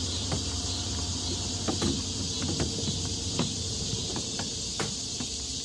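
Steady high hiss over a low hum, with a few faint clicks scattered through it. This is background noise deliberately laid under a TOEIC listening-test recording to imitate a poor exam-room broadcast system.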